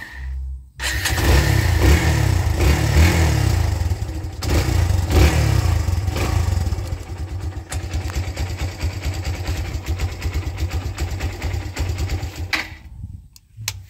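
Kawasaki Barako II 175 single-cylinder motorcycle engine starting about a second in, catching at once without choke since it is already warm. It is blipped three times, then idles steadily and is switched off near the end.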